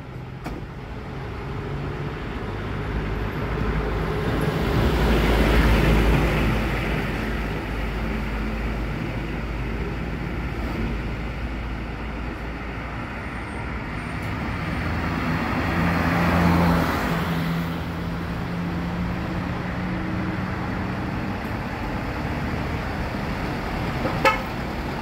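Road vehicles passing close by: a steady low engine rumble that swells twice as vehicles go past, about six and again about seventeen seconds in. A single short sharp knock sounds near the end.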